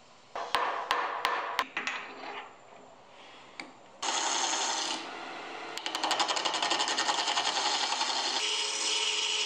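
A few sharp wooden knocks as glued-up segmented rings are handled. About four seconds in, a wood lathe cutting begins: a gouge turning a segmented walnut-and-poplar cylinder, a steady hiss of cutting with a fast, regular ticking.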